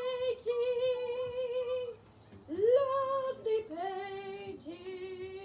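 A woman singing a tune without words in long held notes. Two phrases are split by a short break about two seconds in; the second phrase slides up in pitch and then settles lower.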